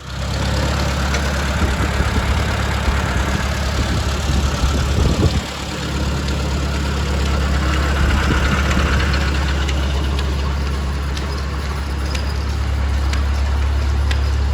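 Farmall Super C tractor's four-cylinder engine running steadily, with a short dip and change in its note about five seconds in.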